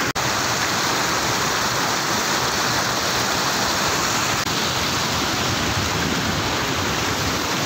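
Water pouring steadily over a low concrete weir and churning in the shallows below, a constant rush of falling water with two momentary drop-outs.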